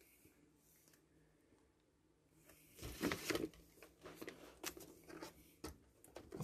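Sheets of paper handled and slid by hand. From about halfway in there is a rustle and scrape, then several lighter taps and rustles, with a sharp snap right at the end.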